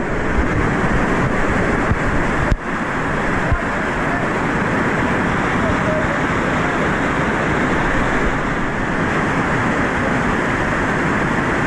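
River rapids pouring down a rocky chute, a loud, steady rush of white water. The sound cuts out sharply for an instant about two and a half seconds in.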